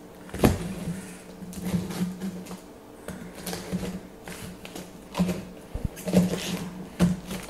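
A small blade cutting along the lid seam of a cardboard box, making irregular scrapes and clicks, with a low steady hum underneath.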